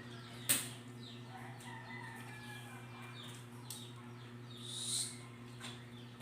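Small birds chirping faintly with short, repeated falling notes over a steady low hum, with a sharp click about half a second in and a brief hiss about five seconds in.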